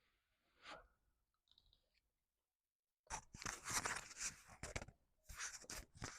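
Close-up crunchy chewing of food in two bouts, the first about three seconds in and lasting over a second, the second shorter near the end.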